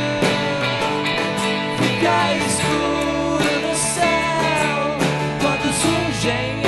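A small band playing live: strummed acoustic and electric guitars with a drum and a hand shaker keeping the beat, and voices singing a sustained wordless line over them.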